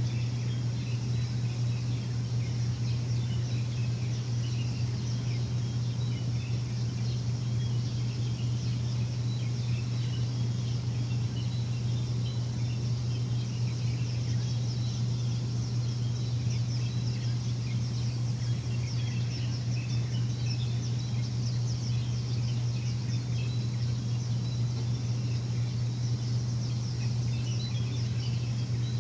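A steady low machine hum, the loudest sound, with many short bird chirps scattered throughout.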